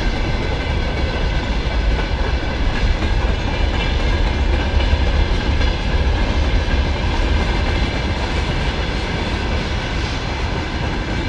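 A freight train's hopper and tank wagons rolling past close by: a steady heavy rumble of steel wheels on the rails, with faint high ringing tones above it.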